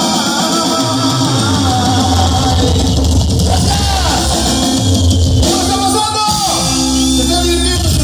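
Live band playing amplified music, a man singing over electric guitar, bass and drums.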